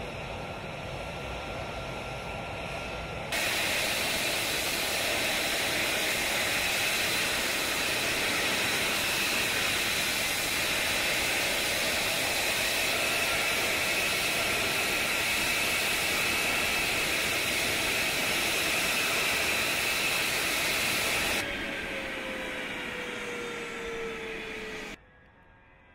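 F-35 fighter's single turbofan jet engine running: a loud, steady rushing hiss with a high whine. It steps up sharply about three seconds in and drops back down sharply after about twenty seconds, with a lower whine sliding down in pitch just before the sound falls away near the end.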